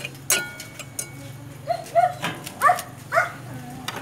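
A metal spatula clinking and scraping in a frying pan of bacon, with a few short, high yelping animal calls about two to three seconds in, louder than the clinks.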